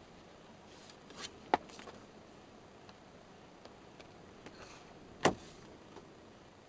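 Paper and card being handled: light rustling with a few sharp taps, the loudest about five seconds in, over a faint steady hiss.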